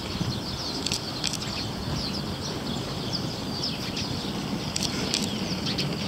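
Small songbirds calling with many short, quick chirps, over a steady low rumble, with a few sharp clicks.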